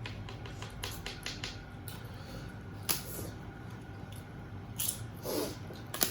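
Scattered small clicks and taps of eating at a table: dishes, utensils or hands against plates, and chewing. There is a cluster of quick clicks about a second in and single sharper taps near three and five seconds.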